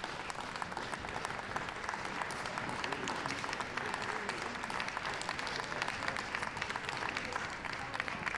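Audience applauding steadily: a dense, even patter of many hands clapping in support of their favourite finalist.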